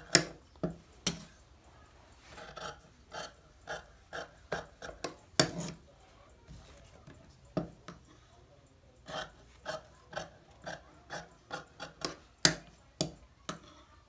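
Scissors cutting through paper canvas: a series of short, crisp snips at uneven intervals, with a pause in the middle.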